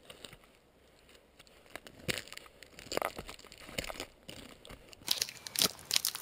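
Irregular scraping, crackling and snapping of clothing and boots against rough conifer bark and dry branch stubs as a person climbs the tree, growing louder and busier about five seconds in.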